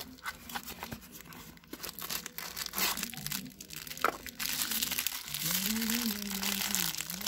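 Clear plastic packets crinkling as they are handled, with cardboard box rustling early on; the crinkling becomes dense and steady about halfway through.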